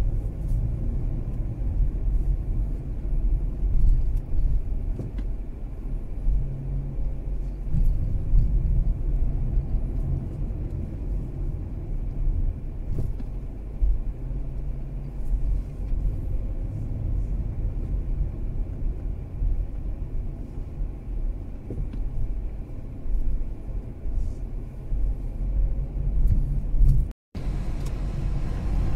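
Mazda 3 driving in traffic: a steady low rumble of engine and road noise. The sound cuts out for a moment near the end.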